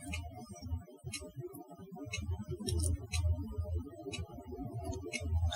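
Quiet background music with a low bass line, with scattered light clicks and taps over it.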